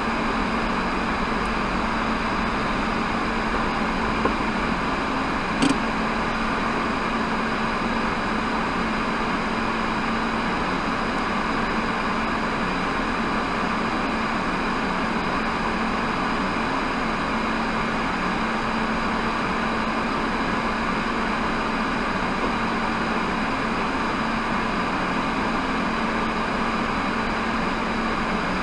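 Steady hum and fan-like noise inside the cabin of a stationary Maruti Baleno RS as it idles, with a faint steady tone under it. A small click about six seconds in.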